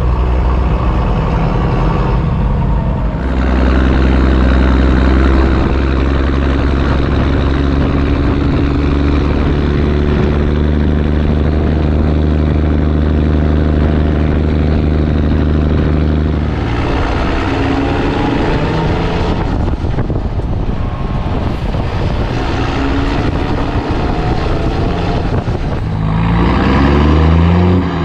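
Unimog truck's diesel engine running under way, heard through its twin upright exhaust stacks. The engine note holds steady for a long stretch, then changes pitch with gear changes and rises as it accelerates near the end.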